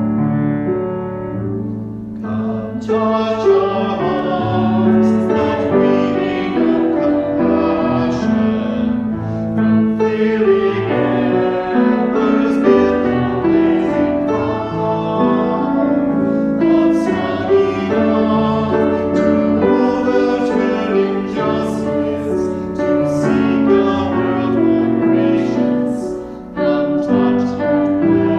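Piano playing a slow hymn-like piece. Singing joins it about two and a half seconds in and carries on over the piano.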